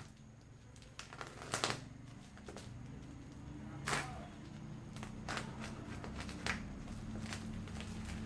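Shipping package being opened by hand: irregular rustling and sharp crackles of packaging material, loudest about one and a half seconds and four seconds in, over a low steady hum.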